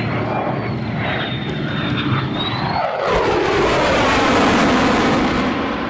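USAF F-35A's single afterburning turbofan passing in afterburner, with a thin high whine at first. About three seconds in it swells into a loud jet roar, its pitch sweeping downward as the fighter goes by.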